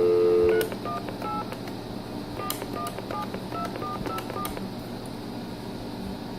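Telephone dial tone over a speakerphone, cut off about half a second in as dialing begins. About a dozen short touch-tone (DTMF) keypad beeps follow over the next four seconds as a number is dialed on a Durabrand corded phone.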